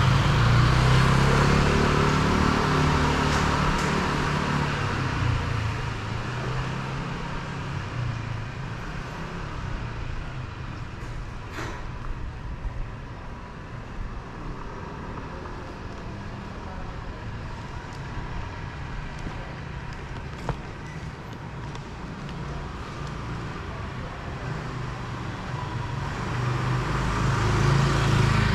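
Street traffic: a motor vehicle's engine runs loud and close at first and fades away, leaving a quieter steady hum of traffic, then another engine rises again near the end.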